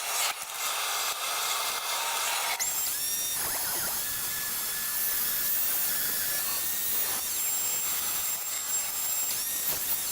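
A spinning power tool working metal, running steadily; a thin high whine joins in about two and a half seconds in.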